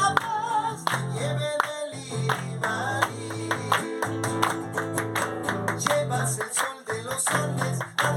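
Instrumental passage of an Andean folk song: acoustic guitar strummed and plucked over a steady bass line.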